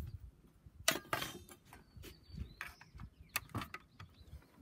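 Handling noise: a few sharp clicks and knocks, about a second in and again about three and a half seconds in, as a hand touches and moves the opened iMac G3's logic board and plastic casing.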